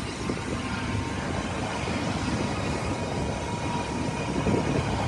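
Diesel construction machinery, a concrete mixer pump or wheel loader, running steadily with a continuous mechanical noise.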